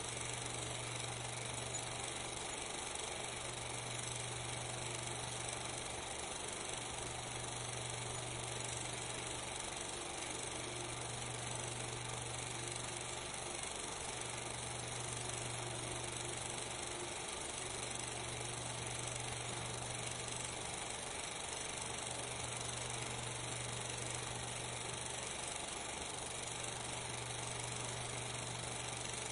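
Steady hiss and mechanical background noise, with a low hum that swells and fades every couple of seconds; no sound from the filmed scene.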